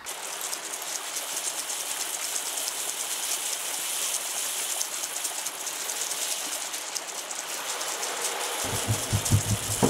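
Water rushing down a small cascade, a steady even hiss. About a second before the end, music with a low pulsing beat comes in.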